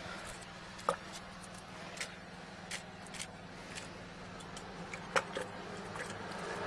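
A steady low hum from a running machine, with scattered light clicks and taps while a cable is fed by hand into a floor drain.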